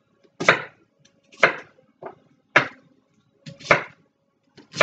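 Kitchen knife chopping an apple on a cutting board: about five sharp strokes, roughly one a second.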